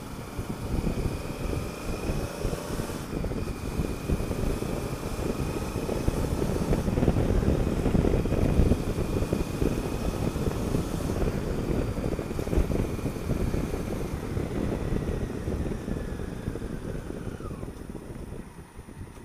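Honda Africa Twin CRF1000L's parallel-twin engine running under way, mixed with wind rush over the helmet-mounted microphone. It grows louder through the middle and eases off near the end as the motorcycle slows.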